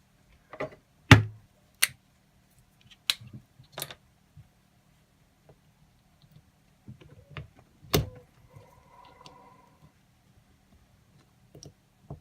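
Sharp, irregular clicks and knocks of a tool working at the back of a Kwikset lock cylinder to pry off its retaining clip, the loudest about a second in, with a faint scrape near the end.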